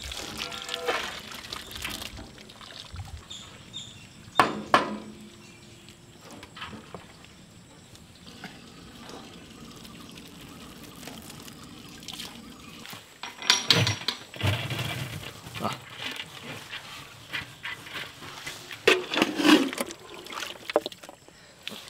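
Water pouring and trickling off parboiled rice as it is scooped out of a large aluminium pot with a perforated ladle and drained. Loud knocks and scrapes of the metal ladle against the aluminium vessels come about four seconds in, twice more in the second half, and again near the end.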